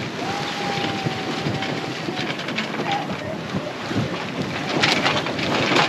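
Wind buffeting the microphone on a sailboat under sail in a swell, with water noise beneath. A faint thin whistle holds for about two seconds near the start, and the noise grows louder near the end.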